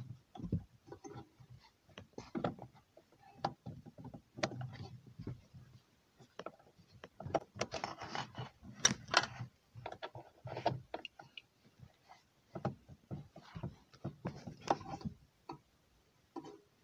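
A wrench turning the adjusting nut on the Toyota Yaris parking-brake cable tensioner rod under the handbrake lever, tightening the cable. It makes irregular metallic clicks and short scrapes that come thickest about halfway through and again near the end.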